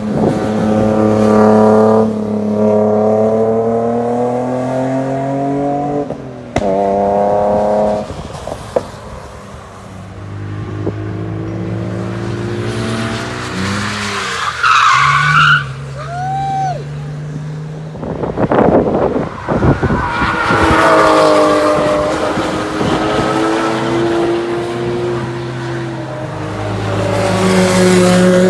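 Cars driven hard past one after another, engines revving up and dropping back at several gear changes. About halfway through, a BMW E46 3 Series coupe slides sideways with its tyres squealing for a few seconds.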